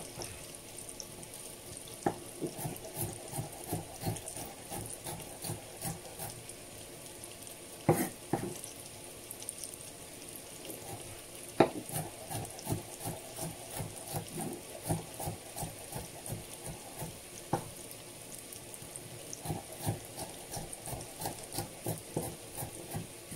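Onions and sweet peppers frying in oil in a pan, with a steady sizzle, while a spoon stirs them in spells of quick scraping strokes against the pan, with a couple of sharper knocks on the pan.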